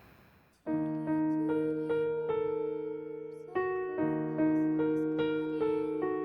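Background music: slow keyboard chords, struck and left to ring, coming in sharply about a second in.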